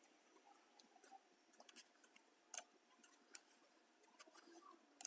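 Near silence with a handful of faint, short computer mouse clicks, the clearest about two and a half seconds in and another at the very end.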